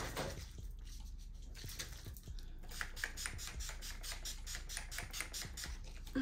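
Makeup brush being swept over the face in quick, even strokes, giving a faint, soft scratching.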